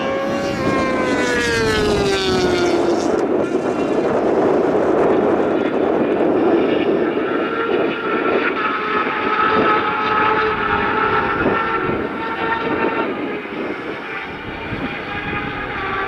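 Racing motorcycles passing at speed: one bike's engine note falls in pitch as it goes by over the first few seconds, then the engines of several more bikes run at high revs together.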